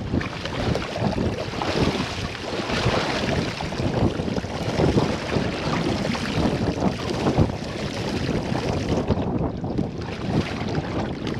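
Wind buffeting the microphone over choppy lake water around a fishing boat, gusting up and down.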